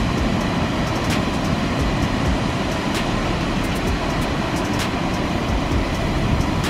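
Steady rush of surf and wind at the beach, unchanging in level, with a few faint ticks scattered through it.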